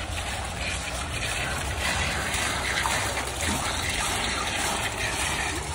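Fountain water splashing steadily: low jets bubbling up in a tiled pool and water spilling over its edge, growing a little louder about two seconds in.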